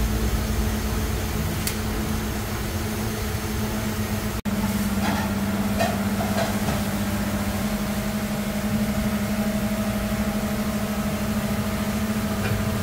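Steady low mechanical hum, like a motor or fan running. It breaks off for an instant about four and a half seconds in and resumes at once, joined by a faint higher steady tone.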